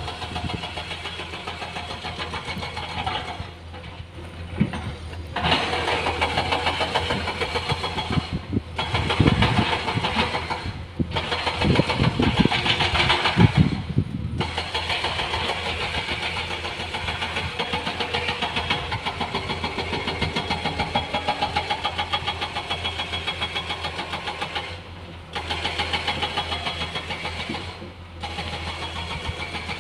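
Diesel engine of heavy earthmoving machinery running, with a fast, even knocking beat and a steady low hum. It grows louder for a while in the middle and dips briefly several times.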